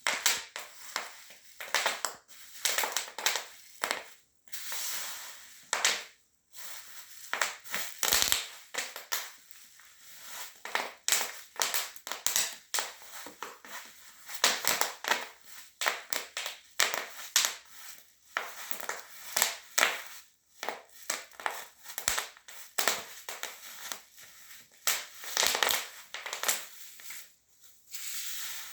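Bubble wrap being crushed under high-heeled shoes: irregular clusters of sharp pops and crinkling plastic, with short pauses between steps.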